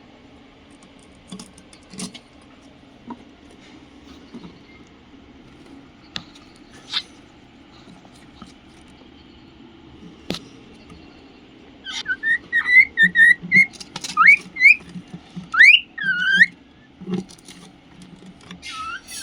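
Cockatiel whistling: scattered short chirps and clicks at first, then about twelve seconds in a quick run of short whistled notes that slide up and down, lasting about five seconds.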